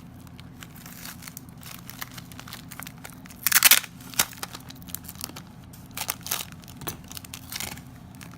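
Paper and sticky tape crinkling and rustling in irregular bursts as a paper face is taped onto a sponge, with one louder, longer burst about three and a half seconds in.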